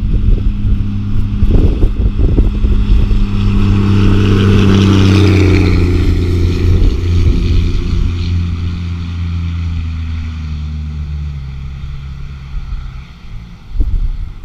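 1973 Travco 270 motorhome with a swapped-in 5.9 Cummins inline-six diesel driving past. The engine and a rush of tyre noise are loudest about five seconds in, then fade as it pulls away. A short knock near the end.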